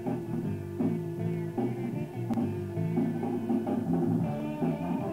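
Instrumental band music: electric guitars playing over a bass line and a drum kit.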